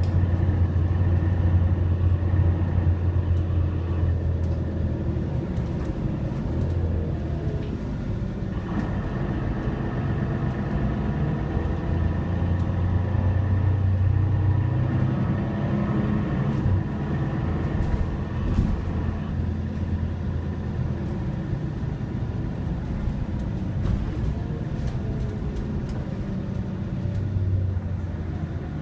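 Inside a moving city bus: the engine's steady low drone and road rumble, the engine note dropping away and coming back several times as the bus slows and pulls away again.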